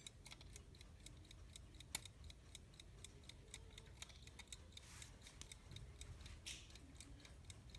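Faint, even ticking of a running vintage US Time Waterbury alarm clock movement, several ticks a second, with one sharper click about two seconds in.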